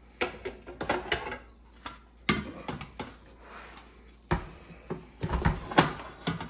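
Ninja air fryer grill's cooking pot and crisper basket being lifted out and set down, with the hinged lid swung shut: a series of clatters, scrapes and knocks, the loudest near the end.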